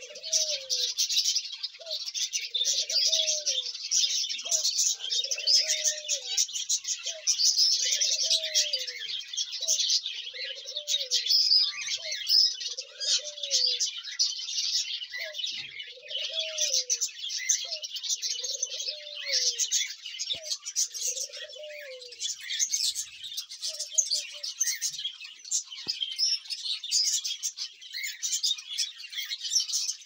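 A flock of budgerigars chattering and chirping without pause, high and dense. Under it a dove coos in a steady series of low arched notes, about one a second, which stops about two-thirds of the way through.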